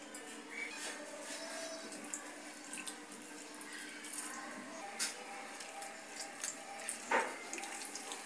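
Water pouring into a steel bowl of dried tamarind, then sloshing and splashing as a hand squeezes the soaking tamarind to make tamarind water, with a few sharp splashes along the way.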